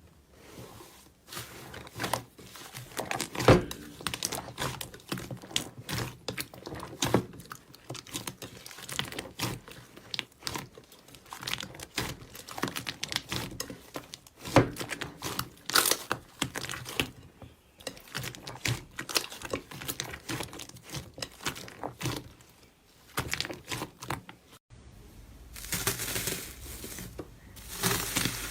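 Slime being squeezed and stretched by hand, giving a dense run of sticky crackles and pops. Near the end it turns into a denser, more continuous crackle.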